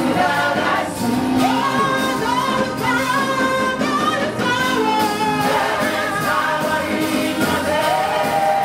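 Live gospel worship song: a group of singers on microphones singing together over instrumental accompaniment, with a steady repeating bass line.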